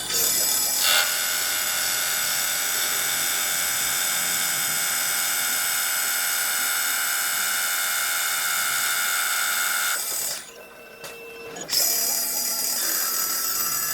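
CNC wood lathe running, a steady high-pitched machine whine of several fixed tones. It cuts out for about a second and a half a little past ten seconds, then starts again.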